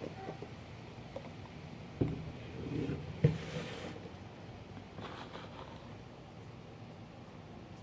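Slime mixture being stirred in a bowl, with two knocks of the utensil against the bowl, about two seconds in and again a second later.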